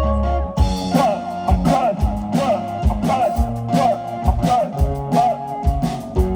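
Music with guitar: held notes, then a steady drum beat comes in about half a second in, under wavering, bending guitar notes.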